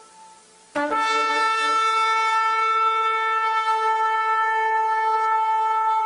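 Shofar (ram's horn) blown in one long, steady note that starts with a short upward slide under a second in, after the fading tail of an earlier blast.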